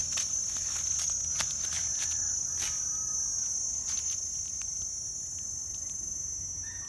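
Steady high-pitched insect chorus, with scattered sharp clicks and taps over it.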